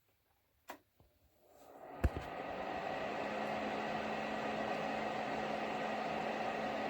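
PELONIS PHTA1ABB portable space heater's fan spinning up over about a second and a half, then running steadily with an even rush of air and a low hum. A click just before it starts, and another about two seconds in.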